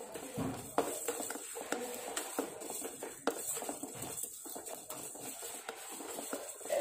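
Coriander seeds being dry-roasted in a pot and stirred with a wooden spatula: a steady scraping and rattling of the seeds against the pan, with many small clicks.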